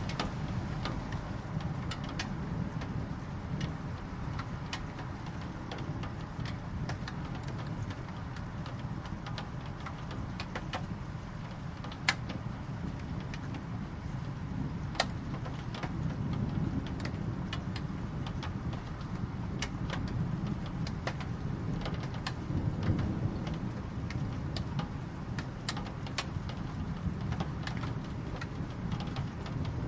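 Steady rain with scattered sharp drops striking a hard surface, over a low rumble that swells and fades. The two loudest drops come just under halfway through.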